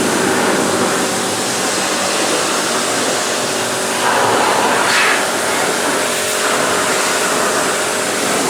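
AVA Evolution P80 electric pressure washer running, its steady motor and pump hum under the hiss of the water jet blasting the wheelie bin's lid. The spray hiss swells briefly about four to five seconds in as the jet hits differently.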